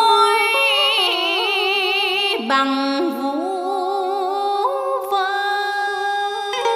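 A woman chanting Vietnamese poetry in the ngâm thơ style: long held notes with a wide vibrato, stepping to a new pitch about two and a half seconds in and again near the middle.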